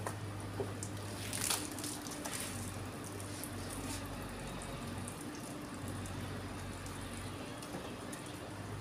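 Water running from a garden hose and splashing on wet concrete, with a steady low hum underneath and a couple of brief hissing spurts in the first few seconds.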